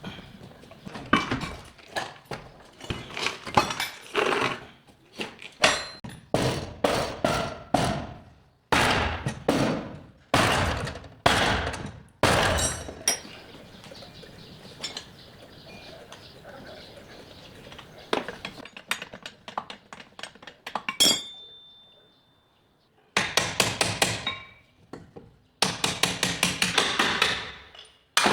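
Hammer blows on car body sheet metal: irregular sharp metallic strikes with pauses, then quick runs of many strikes in a row near the end. A short high ring sounds off the metal about three-quarters through.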